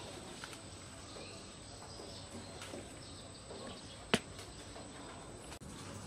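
Outdoor ambience: a steady, thin high-pitched tone with faint scattered chirps, and one sharp click about four seconds in.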